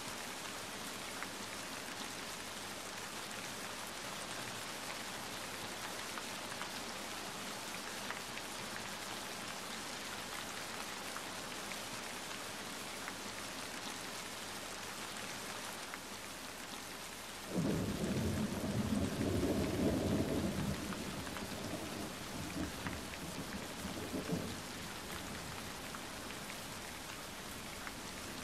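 Steady rain falling, from a nature-sounds rain recording. Past the middle a roll of thunder breaks in suddenly, rumbles loudest for a few seconds and dies away.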